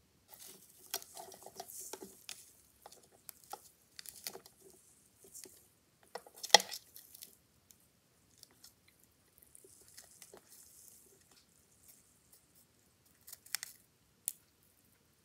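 Brazilian white knee tarantula (Acanthoscurria geniculata) crunching a mantis in its fangs: irregular small cracks, clicks and crackling as the prey's body is crushed, with one sharp loud crack about six and a half seconds in and a couple more clicks near the end.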